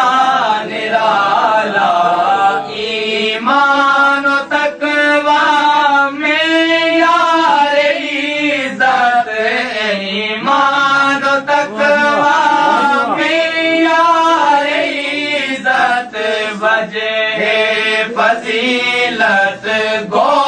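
A man's voice chanting in a slow melodic recitation, drawing out long notes that waver up and down.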